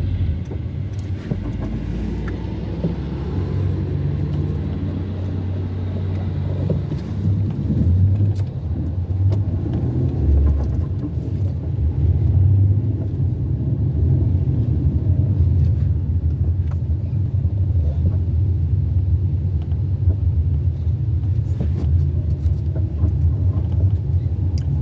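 Steady low rumble of a car on the move: engine and road noise while driving.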